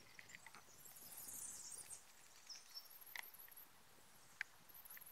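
Near silence: a few faint clicks and taps from plastic bottles being handled, with faint, very high chirps repeating in short groups behind them.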